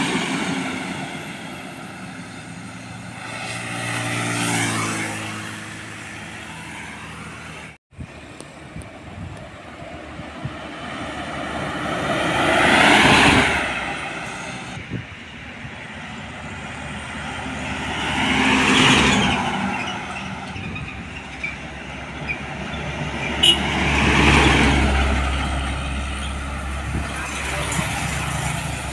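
Trucks and other road traffic driving past one after another, each pass swelling and then fading, with four main pass-bys about five to six seconds apart. The sound cuts out for a moment about eight seconds in.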